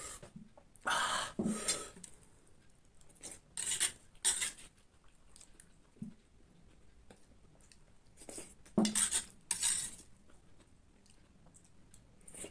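Metal spoon scraping and clinking on a steel plate while scooping up scrambled egg, in a few separate strokes.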